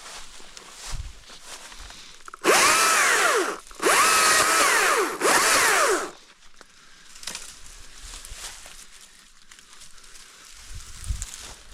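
Stihl MSA 220 battery electric chainsaw running in three short bursts, its motor whining up to speed and spinning down each time, as it cuts shrubs.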